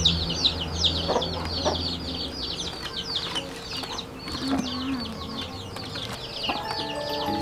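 Chicks peeping continuously in a rapid stream of high, falling peeps, with a lower call about four and a half seconds in, over soft clicks of chili stems being picked off by hand. Background music comes in near the end.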